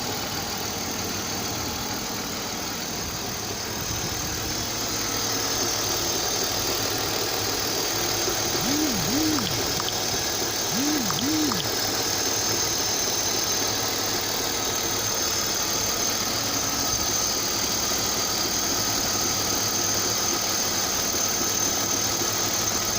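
BMW M52B28TU 2.8-litre straight-six in a 1999 528i running steadily with a dull, rhythmic knocking whose cause is unknown.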